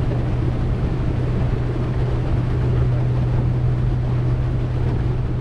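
Boat engine running at a steady speed, a constant low drone, with a wash of water and wind noise over it.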